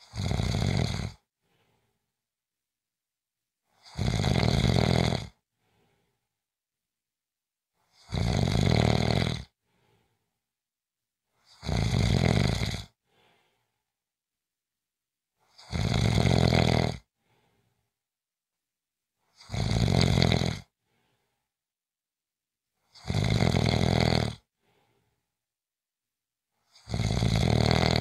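Snoring: eight loud, rasping snores, each about a second long, coming steadily about every four seconds, with silence between them.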